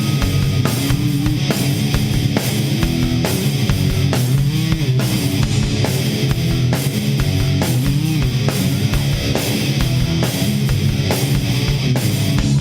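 Live rock band playing an instrumental passage: electric guitar, bass guitar and drum kit keeping a steady driving beat.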